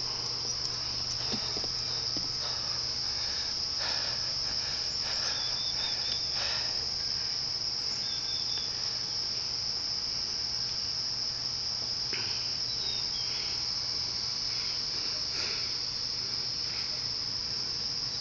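Steady chorus of insects, a continuous high-pitched shrill trill with no break, and a few faint short chirps over it.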